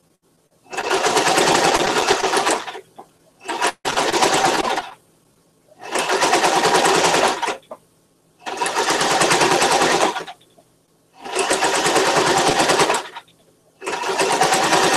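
Electric home sewing machine stitching in short runs of one to two seconds, starting and stopping about six times with brief pauses between.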